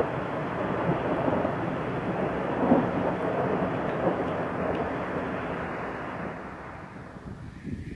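A long roll of thunder, rumbling on and slowly dying away over the last couple of seconds.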